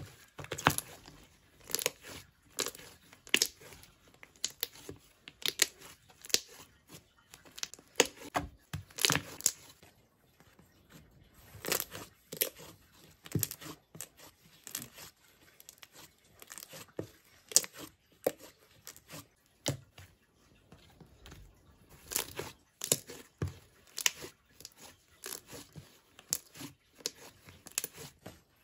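Thick cream-coloured slime being folded, stretched and pressed by hand, giving irregular clusters of sharp sticky pops and crackles.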